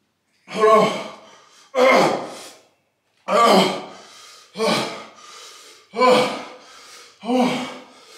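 A man's voice letting out about six short, pained cries, one every second or so, from the burning heat of the hot chip he has just eaten.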